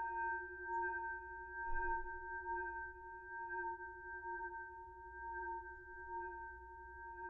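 Metal boxing bell ringing on after being struck, a sustained metallic ring of several clashing tones that wavers slowly in level and gradually fades. It swells briefly just before two seconds in.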